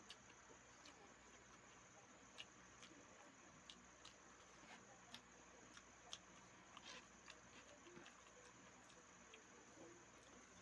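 Faint chewing and irregular mouth clicks from someone eating, close to the microphone, over a steady high-pitched hum.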